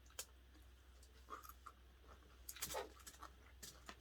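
Faint eating noises at close range: a scattering of soft clicks and small mouth sounds, busiest between two and three seconds in, over near silence.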